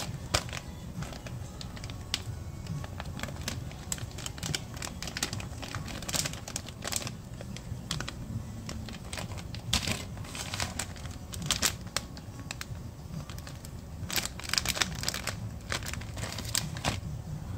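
A thin plastic bag crinkling and crackling in irregular bursts as it is handled.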